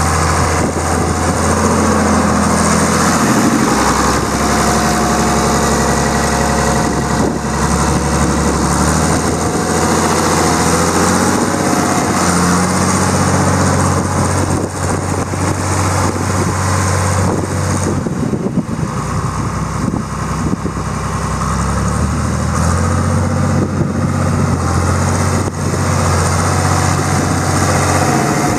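John Deere 4020's 6.6-litre six-cylinder diesel engine running steadily. Its low tone drops and comes back up a couple of times.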